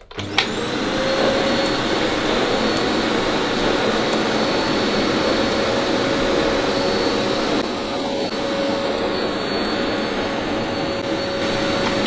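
Amazon Basics 700 W bagless cylinder vacuum cleaner switched on with a click, its motor spinning up to a steady whine with rushing suction air while the floor brush works the carpet. The motor begins to wind down as it is switched off at the end.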